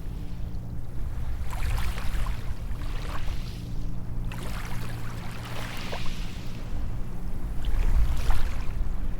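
Small waves breaking and washing up a sandy beach one after another, each a hiss that swells and fades, about every two seconds, over a steady low rumble.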